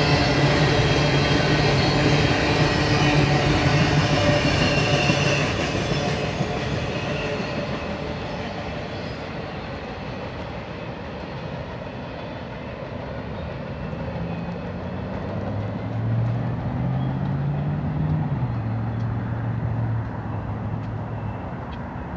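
Double-stack intermodal freight train passing close by: the rumble and clatter of the cars' wheels on the rails, loud for about the first five seconds and then fading as the train moves away. A low hum rises and falls in the second half.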